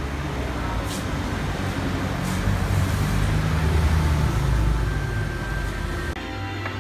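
Road traffic noise: a steady low rumble with a hiss over it, swelling for a couple of seconds in the middle as a vehicle passes, then cutting off abruptly near the end.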